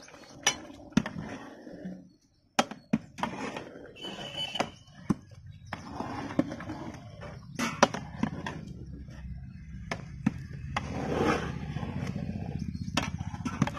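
Metal ladle knocking and scraping against a large aluminium cooking pot as rice is stirred into boiling biryani stock: irregular sharp clicks and scrapes, with a steady low rumble underneath in the second half.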